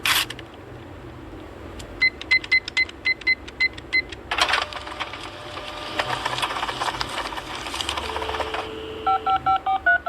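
Electronic phone keypad beeps: a quick run of about ten short beeps, then a few seconds of noisy clatter, then more short two-tone dialing beeps near the end.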